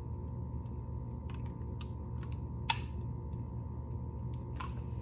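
A handful of light, separate clicks and ticks from small plastic pieces being handled and pulled apart, one sharper click about midway, over a steady low room hum.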